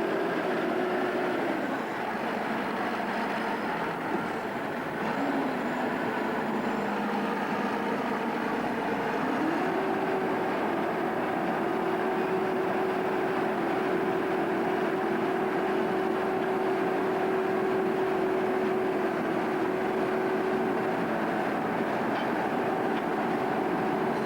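John Deere self-propelled forage harvester running while chopping maize: a steady mechanical drone with a hum that drops in pitch about two seconds in, climbs back up about ten seconds in, then holds.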